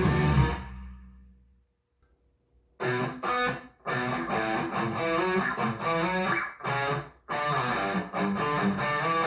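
Guitar music fades out and falls silent for about a second. A new piece of plucked guitar music starts about three seconds in, with brief pauses between phrases.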